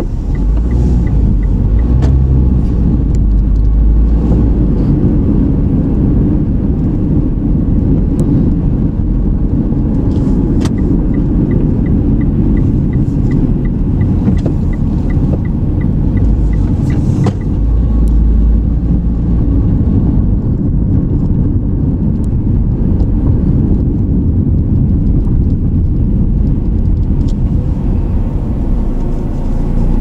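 Car running on town streets, heard from inside the cabin: a steady low engine and road rumble. The turn-signal indicator ticks evenly for the first second and again for several seconds in the middle, and a few single knocks come over bumps.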